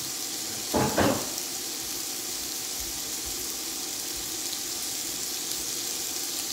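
Sliced Cajun andouille sausage sizzling in oil in a stock pot: a steady frying hiss. Two brief louder sounds come about a second in.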